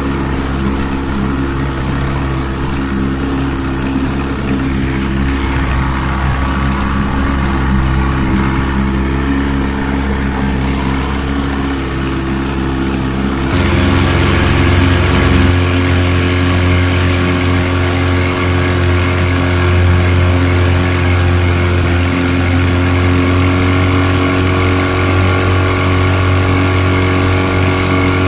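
A 1970 Mercury 20 hp two-stroke outboard motor running steadily. About halfway through, its note changes and becomes a little louder, as if the throttle is opened slightly.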